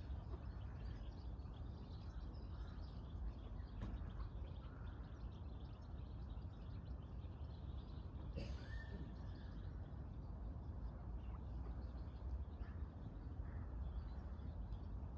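Dawn bird chorus over a steady low rumble: scattered faint chirps, with one louder call about halfway through.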